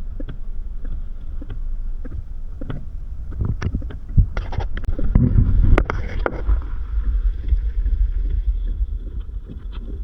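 Vehicle on a rain-soaked road: a steady low rumble of engine and road noise, heard from inside, with scattered taps and knocks, busiest about halfway through.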